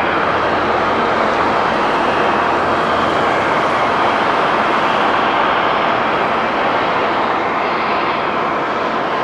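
Airbus A330-300's Rolls-Royce Trent 700 jet engines running at taxi power, a loud steady rush of engine noise.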